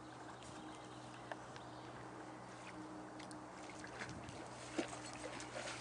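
Faint splashing and rippling water from a dog swimming close to the bank, with a couple of soft knocks.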